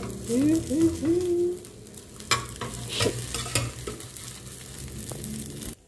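Metal spoon scraping and knocking against a nonstick frying pan as a thin egg omelette sizzles, being loosened from the pan to roll it. Three short rising hummed notes come in the first second and a half, and a few sharp knocks of the spoon follow.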